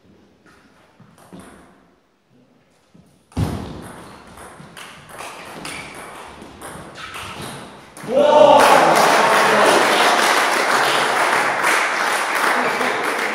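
A table tennis rally: the ball clicking in quick succession off bats and table, starting with a sharp knock. About eight seconds in, loud shouting and crowd noise break out and carry on.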